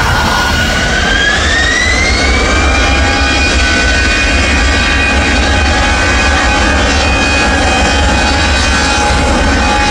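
Jet airliner's engines spooling up: a whine rises in pitch over the first couple of seconds, then holds steady over a loud, low rumble.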